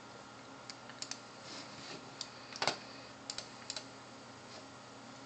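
A computer mouse being clicked: a handful of short, sharp clicks, several in quick pairs like double-clicks, the loudest about halfway, over quiet room tone.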